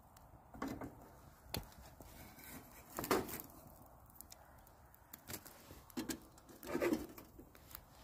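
Wood fire crackling and popping in a metal fire pit, with four louder knocks and scrapes, each under half a second, as the burning log is shifted with fire tongs; the loudest comes about three seconds in.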